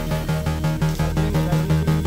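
Background music with a fast, steady beat over a held bass note.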